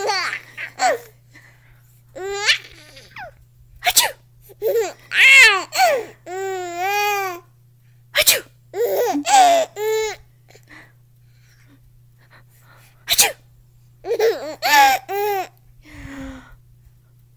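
A baby laughing in repeated bursts of giggles, some long and wavering, each set off by a short sharp sneeze. There are three sneezes, about every four to five seconds.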